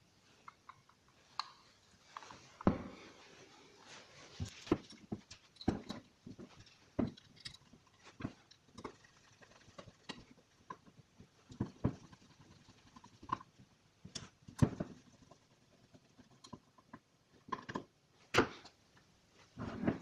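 Irregular clicks, taps and light knocks of small metal parts being handled: a Honda distributor's housing and internals being put back together by hand, with a screwdriver working its screws and parts set down on a wooden table.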